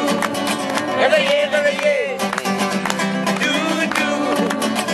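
Nylon-string classical guitar strummed in a quick, steady rhythm, accompanying men singing a Mauritian folk song.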